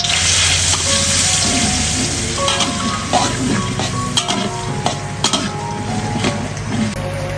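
Hot steel wok sizzling loudly as a metal spatula stirs and scrapes, with a few sharp clinks of the spatula against the pan. The sizzle starts suddenly and eases over the following seconds.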